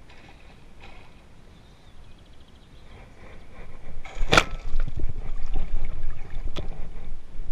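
Fly line swishing through the air during fly casting: a sharp whoosh about four seconds in and a fainter one near the end, over a louder rustling, sloshing noise as the caster moves.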